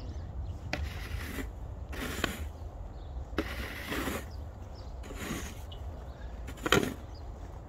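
Footsteps crunching in packed snow, an uneven series of short scrapes about a second apart, over a steady low rumble.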